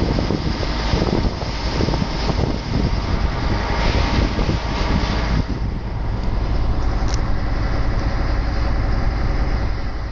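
MAN F2000 truck's diesel engine running steadily while driving, heard from inside the cab together with road noise.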